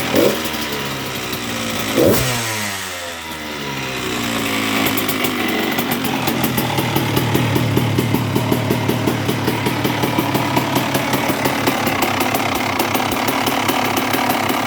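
2002 Honda CR125R's single-cylinder two-stroke engine, blipped twice near the start and about two seconds in, then running steadily with an even pulsing beat. A low growling vibration persists, which the owner suspects comes from a bad crankshaft main bearing or a sloppy clutch basket gear.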